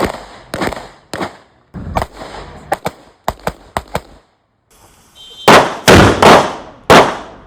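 Series of gunshots: a few spaced shots, then a rapid run of sharper cracks in the middle, then four louder, heavier shots with longer ringing tails near the end.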